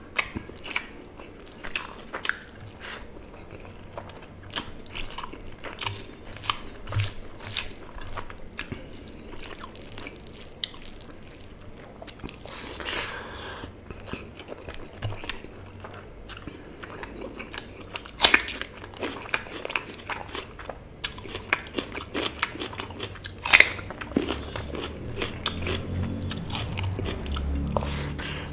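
Close-miked eating: chewing and wet lip smacks as rice and mutton curry are eaten by hand, with many short sharp mouth clicks and a few louder smacks in the second half. A low rumble builds near the end.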